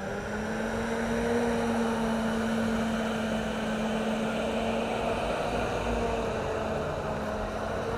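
Engines of World War II military jeeps running at low speed as the vehicles drive slowly past in a column, a steady engine hum whose pitch shifts slightly after about six seconds.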